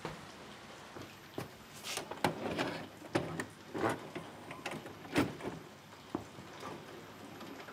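Household objects being handled and moved: irregular knocks and clatters with rustling between them, the sharpest knock about five seconds in.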